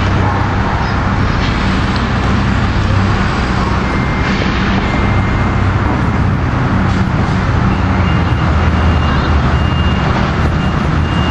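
Steady low engine drone under a loud, even hiss of outdoor noise. In the second half a faint high beep repeats about once a second.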